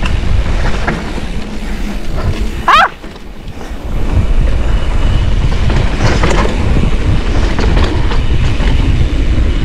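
Mountain bike tyres rumbling over a dirt trail at speed, with wind on the microphone and the bike rattling. About three seconds in comes a short, loud, wavering high squeal, then about a second of quieter sound before the rumble picks up again.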